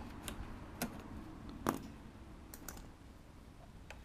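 A handful of light, irregular clicks and taps as a small aluminium tie rod is handled and fitted against an RC truck's plastic suspension parts; the loudest click comes a bit under two seconds in.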